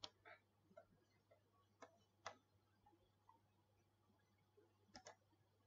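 Faint, scattered clicks of a computer mouse: a few single clicks, then a quick pair about five seconds in.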